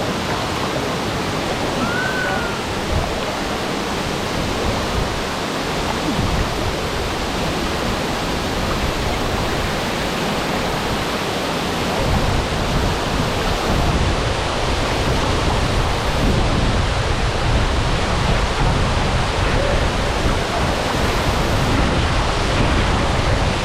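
Steady rushing roar of Florence Falls, a waterfall pouring into its plunge pool. A heavier low rumble comes in about halfway through.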